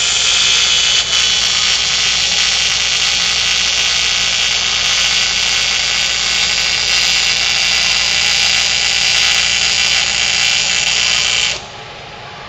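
Welding arc sizzling in one steady, unbroken bead, then cutting off suddenly near the end as the trigger is released.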